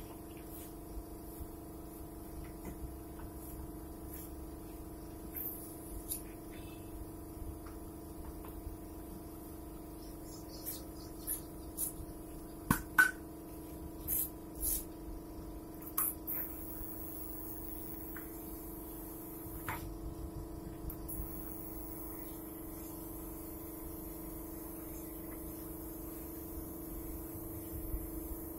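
Air compressor feeding a paint spray gun, running with a steady hum, with scattered taps and knocks, the loudest a sharp knock about 13 seconds in. In the second half a faint high hiss comes in as the spray gun sprays paint onto the panel.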